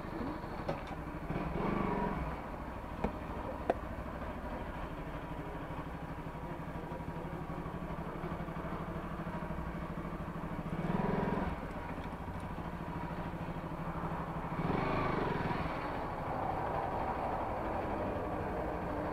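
Motorcycle engine idling steadily, with a few brief swells in level. Two sharp clicks sound about three seconds in.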